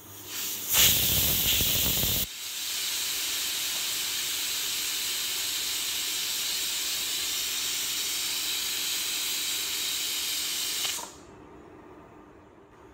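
Prestige pressure cooker whistling as steam lifts the weight: a loud burst of hiss about a second in, then a steady jet of steam hissing that stops near the end. This is the third whistle, the sign that the beef inside is cooked.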